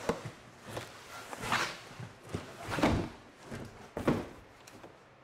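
Cardboard scraping and rustling as a large outer shipping box is worked up and off the inner box, with about four louder scrapes and bumps spread over a few seconds.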